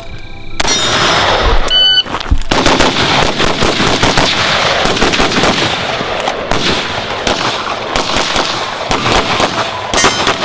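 Rapid rifle gunfire from AR-15-style carbines, shots following one another so fast they run together into a nearly continuous stream. It starts about half a second in and keeps going until just before the end.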